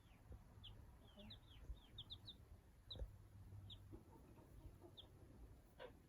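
Young chick peeping softly: short, high peeps, some falling in pitch, a quick run of them between one and two and a half seconds in, then single peeps every second or so.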